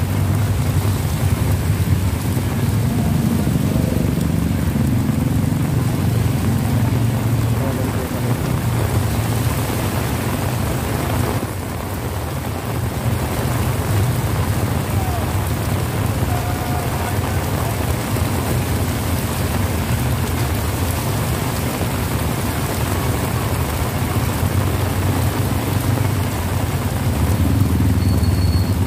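Heavy rain pouring down on the street, a dense steady hiss, with a low steady rumble of idling motorcycle tricycles underneath.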